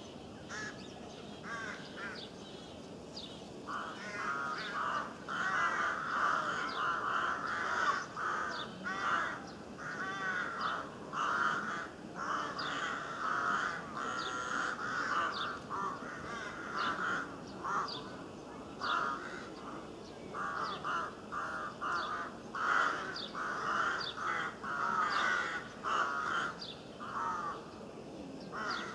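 Birds calling: a dense run of overlapping harsh cawing calls, crow-like, with short high chirps of small songbirds throughout.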